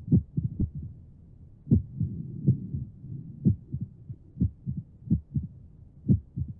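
Heart sounds played by an auscultation training manikin: a run of low thuds at roughly one strong beat a second, unevenly spaced with smaller beats between, over a steady low rushing between the beats.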